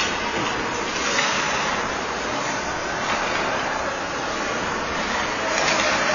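Ice-rink ambience: a steady noisy hiss of skates scraping on the ice and general arena noise, swelling briefly about a second in and again near the end.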